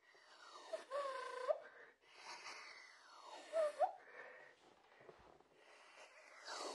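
Inward tooth whistle, a beatbox sound made by drawing breath in through the teeth with a slightly curled tongue: three breathy inhales, each carrying a thin whistle that slides down in pitch and flicks sharply back up at the end.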